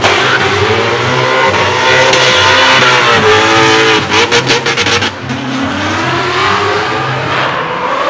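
Drift cars' engines revving high and changing pitch as they slide sideways past a crowd, with a rapid stuttering of the engine about four seconds in.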